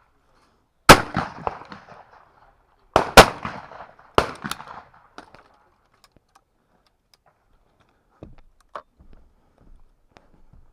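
Shotgun shots at released clay targets: a loud shot about a second in, then more shots around three seconds in, the loudest about three seconds in, and two weaker cracks about a second later, each trailing off with an echo.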